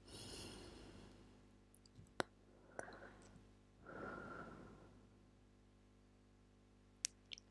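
Soft breathy exhalations right against a small microphone: one at the start and another about four seconds in, with a sharp click about two seconds in and a few small clicks near the end.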